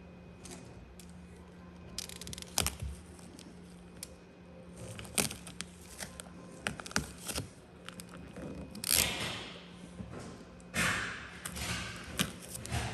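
Gloss black vinyl wrap film being handled, stretched and peeled. Scattered clicks and crackles run throughout, with two longer rustling hisses about nine and eleven seconds in, over a faint steady hum.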